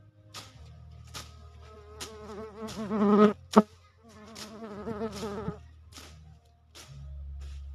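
An insect, likely a fly, buzzing close to the microphone with a wavering pitch. It passes twice: it swells about two seconds in and fades, and comes back about four seconds in. A single sharp click comes between the two passes.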